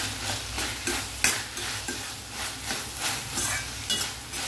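Carrot and capsicum strips sizzling as they stir-fry on a high flame in a stainless steel kadai, with a spoon scraping and clicking irregularly against the pan as they are stirred.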